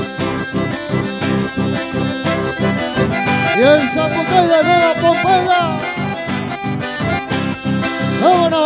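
Live dance-band music led by an accordion, with a steady beat and a gliding melody.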